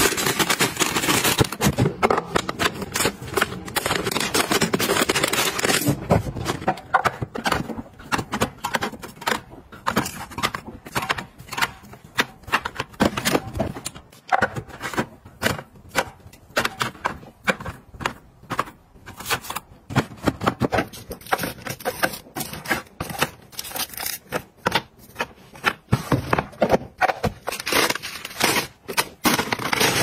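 Plastic chip bags crinkling densely for the first several seconds as they are packed into plastic bins, then a long run of sharp clicks, taps and rustles as snack packets and small aluminium drink cans are set down in plastic trays.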